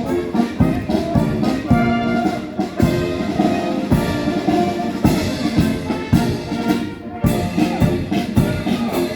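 Military brass band playing a march, with brass melody over a steady drum beat about two beats a second.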